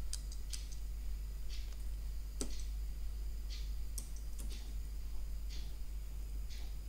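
A small metal tool scraping copper bare to make it easy to solder, in short dry scraping strokes at an uneven pace. The strongest stroke comes a little after two seconds in. A steady low hum runs underneath.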